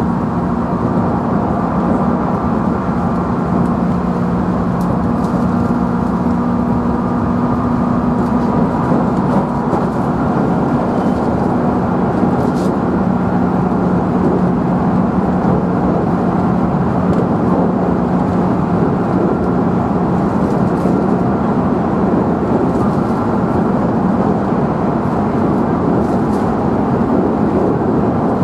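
Running noise inside a JR Central 311 series electric multiple unit motor car at speed: a steady rumble of wheels on rail with an even hum from the traction motors and gearing.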